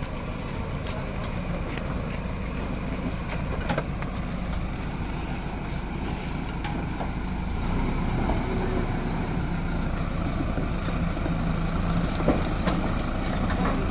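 JCB backhoe loader's diesel engine running steadily as the machine crosses a small drain, with a few sharp knocks. The engine gets a little louder about eight seconds in.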